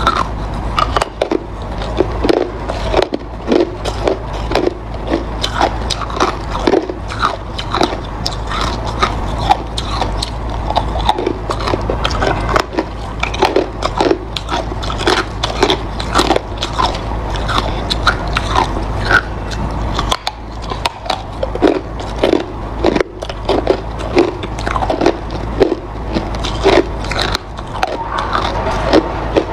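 Hard ice being bitten and chewed close to the microphone: a continuous irregular run of sharp cracks and crunches.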